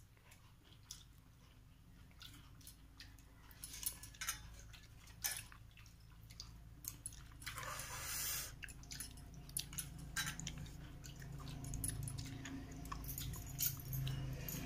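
Eating by hand: fingers squishing and mixing watered rice (pakhala) in a steel bowl, with chewing and scattered small clicks. A louder rustle lasts about a second, around eight seconds in.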